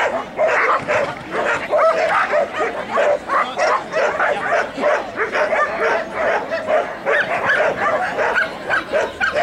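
A dog barking over and over in short, quick barks, about three a second, with no break.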